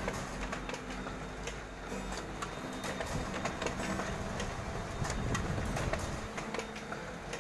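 Canon iR photocopier running, its cooling fan spinning behind the vent grille: a steady mechanical hum with scattered clicks.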